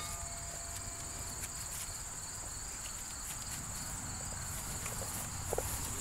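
Steady high-pitched chirring of insects in the grass, such as crickets, with a low rumble underneath.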